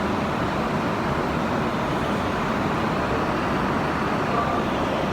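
Steady road and traffic noise of a car driving.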